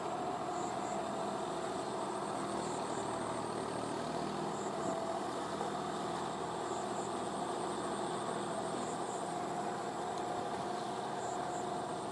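John Deere 5045D tractor's three-cylinder diesel engine running steadily under load, pulling a rotavator through wet paddy mud on cage wheels.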